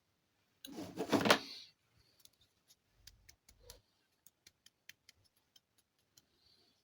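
Toy packaging being handled: a loud crinkling rustle about a second in, then a string of light, sharp clicks and taps with a soft thump around three seconds in.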